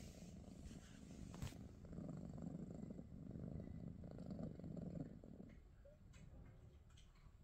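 British Shorthair cat purring close up, a low pulsing rumble that swells after a couple of seconds and fades out a little over two-thirds of the way through.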